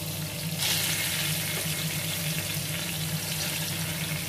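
Sliced onions and cumin seeds sizzling in hot oil in a wok. About half a second in the sizzle suddenly gets louder, as a new ingredient goes into the oil, and it stays up.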